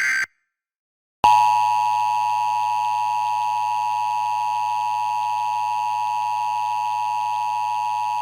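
The tail of an Emergency Alert System SAME header data burst, a harsh buzzing screech that cuts off, then after a second of silence the EAS two-tone attention signal starts and holds as one steady dual-tone beep. It signals the start of an emergency alert, here a flash flood warning.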